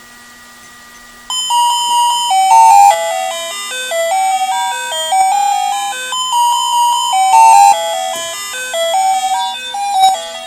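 Doorbell chime playing a multi-note tune, starting about a second in and running for about nine seconds over a faint steady low hum. It is ringing by itself, with nobody at the door, which the owner ties to testing his broken ozone machine with a multimeter.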